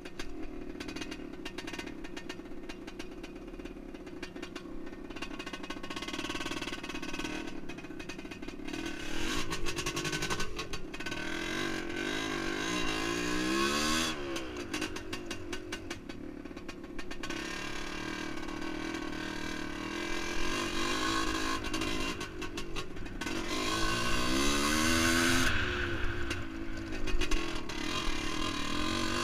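1978 Yamaha DT400E's single-cylinder two-stroke engine on the move off-road, its pitch climbing and falling back through the gears several times, with sharp drops about halfway and again near the end.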